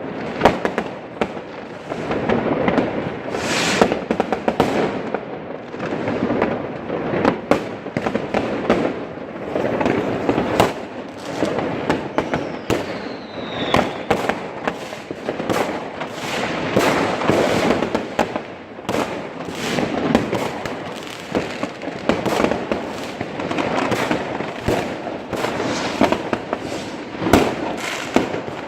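New Year's fireworks and firecrackers going off continuously: dense, overlapping bangs and crackles over a steady rumble of distant explosions, with one falling whistle about halfway through.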